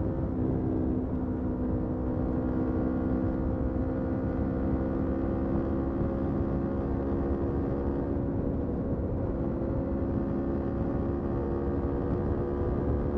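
Motorcycle engine running at a nearly constant speed, its pitch drifting only slightly, with no revs or gear changes.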